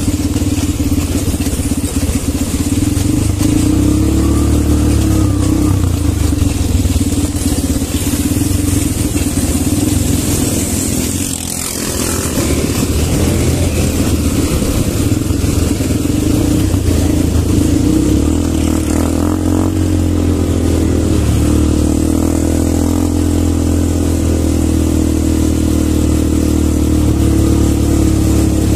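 Quad bike (ATV) engines running steadily as the ATVs ride along a rough dirt trail, the sound dipping briefly around the middle.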